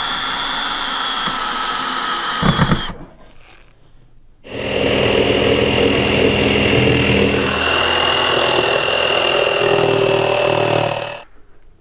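Cordless drill/driver running, driving screws into a metal cable tray, with a couple of knocks just before it stops about three seconds in. After a short pause, a power tool runs again for about six seconds with a steady high whine.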